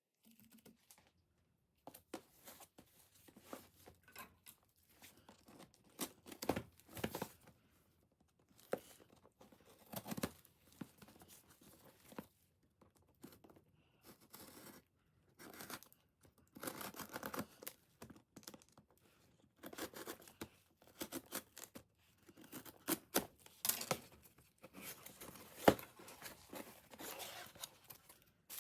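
Packaging being unwrapped by hand: irregular rustling, crinkling and tearing of paper or plastic wrapping, in uneven bursts.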